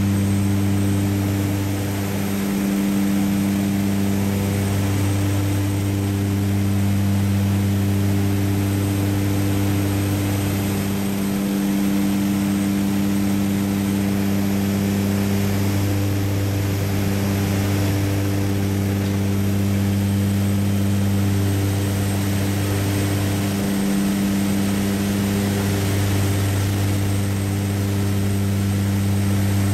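Propeller-driven light aircraft running steadily in cruise, heard from inside the cockpit: a constant deep engine hum over a rushing hiss, wavering slightly a few times.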